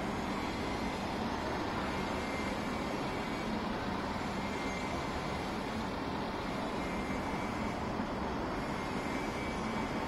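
Steady outdoor city background noise: an even hum of distant traffic.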